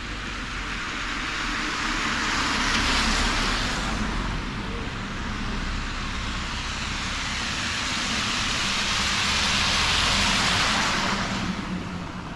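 Two cars passing one after the other, each a swell of tyre hiss that builds and fades, the first loudest about three seconds in and the second about ten seconds in.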